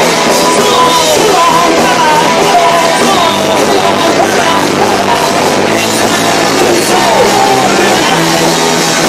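A rock band playing loud electric guitars and drums, heard through an overloaded camcorder microphone, so the whole mix is distorted and smeared.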